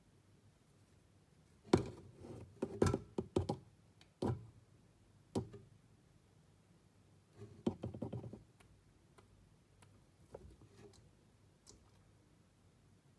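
Knocks and thuds from feeding in an African bullfrog's glass terrarium: a quick cluster of sharp knocks about two seconds in, single knocks around four and five seconds, and another cluster near eight seconds.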